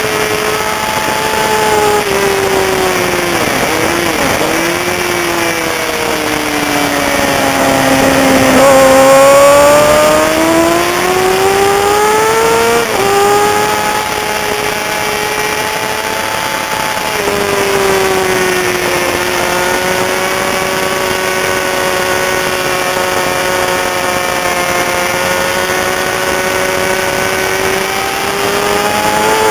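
Racing sportbike engine at full race pace: its pitch falls as it slows for corners and climbs as it accelerates out. About 13 s in there is a sudden drop in pitch at a gear change. The note then holds fairly steady and rises again near the end, over a steady rush of wind.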